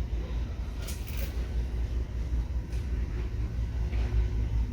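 Retail store ambience: a steady low rumble, with a brief rattle about a second in.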